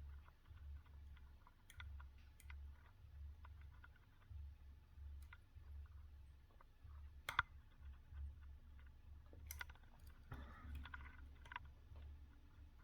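Faint, scattered metallic clicks of a hook pick working the pins inside a BiLock NG lock core, with one sharper click about seven seconds in and a few more close together near ten seconds.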